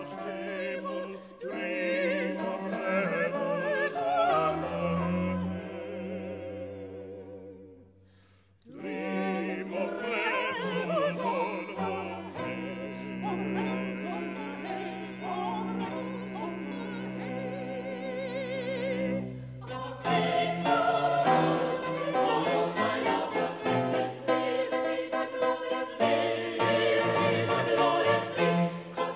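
Classical vocal music: solo singers with vibrato over a small string ensemble with cello holding low notes. The music dies away almost to silence about eight seconds in, then starts again and grows fuller about twenty seconds in.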